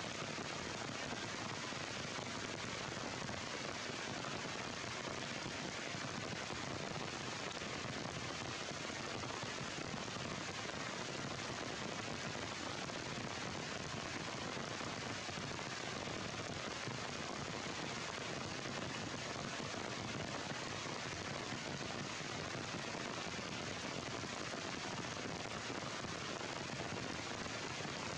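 Heavy rain falling steadily, an even dense crackle of countless drops.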